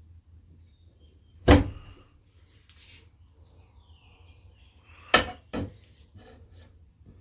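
Hand work on a motorcycle tire being forced onto its rim: one loud, sharp knock about a second and a half in, then two more knocks in quick succession about five seconds in, with faint scraping and handling between them.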